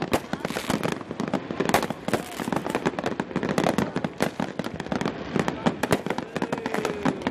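New Year fireworks going off without a break: a dense, irregular run of bangs and crackles, several reports a second.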